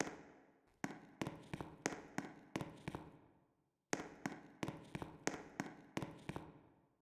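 Fire alarm signal sounding as a run of ringing, bell-like strikes, about three a second, with a pause of about a second midway; it cuts off abruptly near the end.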